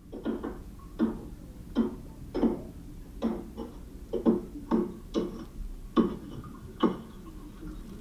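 Footsteps crunching on a rough rock-and-earth floor, about ten even steps at a slow walking pace, over a low steady hum.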